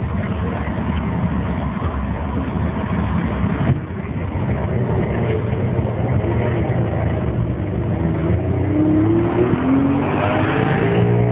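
Classic Saab 96 driving slowly past at close range, its engine note rising over the last few seconds, with a rush of engine and tyre noise as it goes by.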